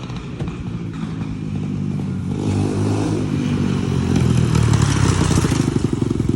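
150cc motorcycle engine running as the bike comes closer, growing louder from about two seconds in.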